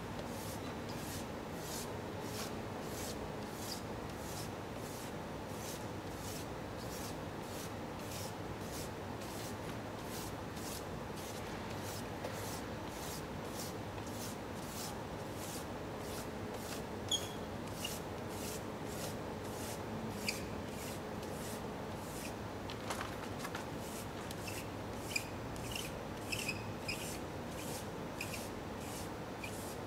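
Frottage rubbing: a drawing stick scraped back and forth over paper pressed against a wall, about two strokes a second, over a steady background hum. A few sharp ticks come in the second half.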